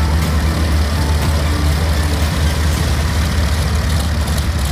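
Ford Trimotor's three radial engines running at low power as it taxis, a steady low rumble.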